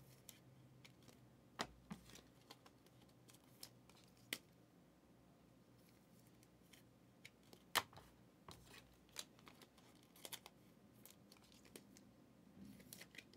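Quiet handling of a stack of trading cards: scattered soft ticks and slides as cards are flipped one behind another, the sharpest tick a little past halfway.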